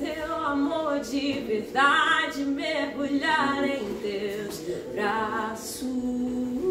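A woman singing a gospel song a cappella, her pitch wavering in vibrato, ending on a long held low note near the end.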